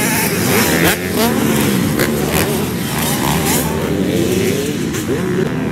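Several dirt bike engines revving on a motocross track, their pitches overlapping and rising and falling as the riders throttle up and back off.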